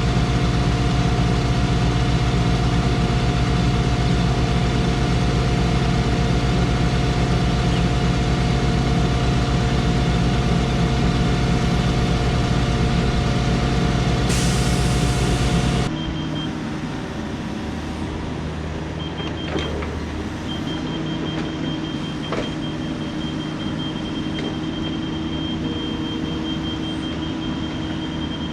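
A heavy-equipment engine running steadily. About halfway through it cuts abruptly to a quieter engine sound with a thin steady high whine and a few light knocks.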